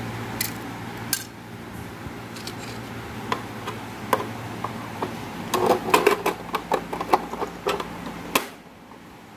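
Plastic clicks and knocks as the needle plate and bobbin cover of a portable sewing machine are handled and fitted over the bobbin area, thickest in the second half and ending in one sharp snap as the plate seats.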